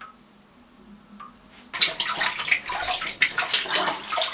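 Toilet flushing: a sudden rush of water starts a little under two seconds in and runs on loudly.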